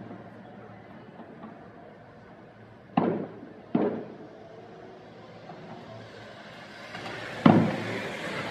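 Aerial fireworks shells bursting: two booms about three-quarters of a second apart, then a louder boom near the end that trails off into a lingering hiss.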